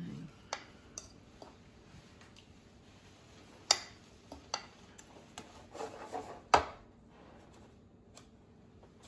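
Scattered clinks and knocks of kitchen handling: a metal fork on a ceramic bowl of raw chicken cutlets and a metal baking pan of cornflake crumbs being tipped and set down on the counter. The two loudest knocks fall a little under halfway and about two-thirds of the way through, with a short rustling rattle just before the second.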